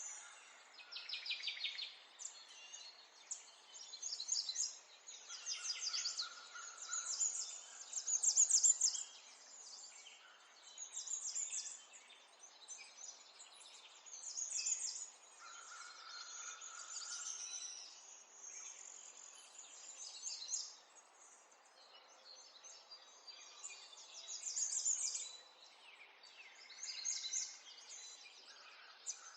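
Several small songbirds chirping and singing in overlapping bursts of quick, high trills, with short gaps between phrases.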